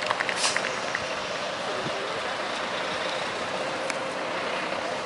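A truck running nearby, heard as a steady, even hiss with a faint steady hum.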